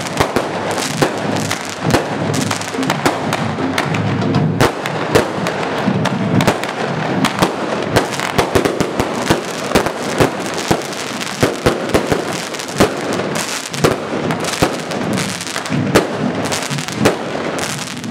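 Fireworks display going off: a rapid, irregular string of bangs and crackles, with music underneath.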